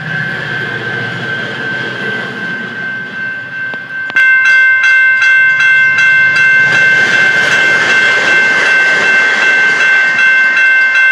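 Level-crossing warning signal sounding steadily. About four seconds in, a commuter train's horn starts up loud, a held chord of several notes, as the train reaches the crossing.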